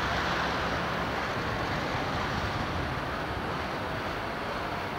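Steady rushing noise of city street traffic, with no distinct events standing out.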